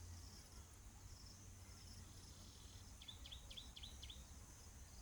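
Faint outdoor ambience of insects droning steadily, with a small bird giving a quick run of about six short chirps about three seconds in.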